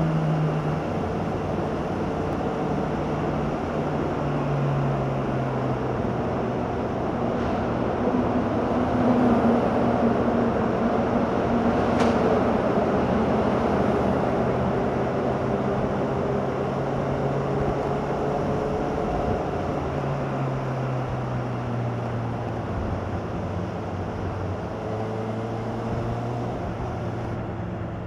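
Honda CBR600RR inline-four engine running through its stock exhaust. The engine note holds steady, then steps down in pitch about four seconds in and again around twenty seconds in.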